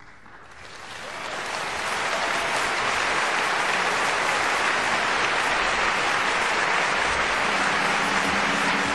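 Audience applauding, fading in over the first two seconds and then steady.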